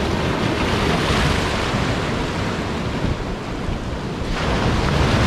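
Sea surf breaking and washing up the beach, with a fresh wave surging in near the end. Wind rumbles on the microphone underneath.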